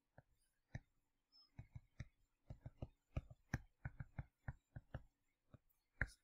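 Faint, irregular taps and clicks of a stylus tip striking a tablet screen during handwriting, coming in quick clusters of several a second.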